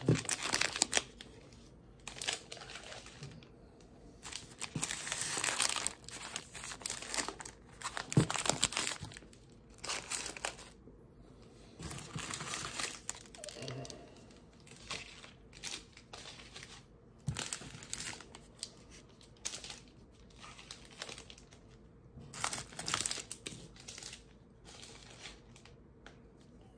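Crinkling and rustling of wrapped trading-card packs and cardboard blaster boxes being handled and moved about, in irregular bursts with short pauses, and a sharper knock about eight seconds in.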